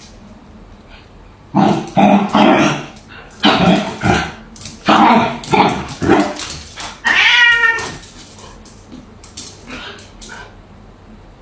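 A domestic cat meowing in a series of loud calls, one of them long and wavering about seven seconds in.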